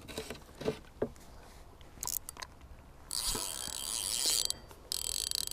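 Fishing reel's drag giving line to a hooked carp that is running, a fast high-pitched ratcheting in spells, the longest from about three seconds in and another near the end, after a few scattered clicks.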